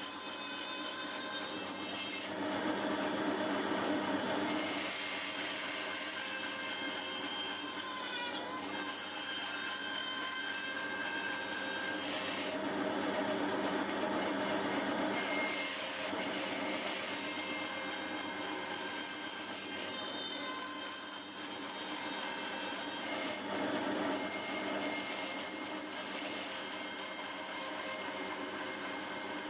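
Band saw running steadily while its blade cuts small pieces of wood fed by hand.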